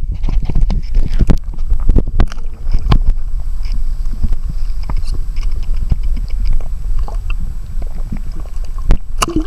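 Water sloshing and a low rumble heard through a camera held just under the surface, with many small knocks and clicks from handling, and one sharper knock near the end.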